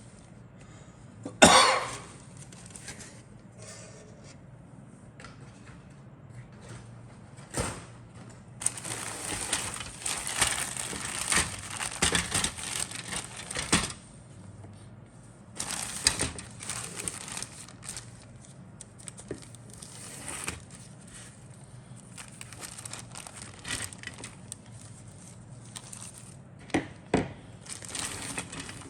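Plastic kit parts and their bags being handled: bouts of crinkling and rustling with a few sharp clicks and knocks as parts are picked up and set down.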